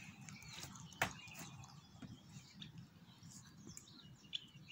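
Birds chirping faintly in the background, with scattered small clicks and one sharp click about a second in.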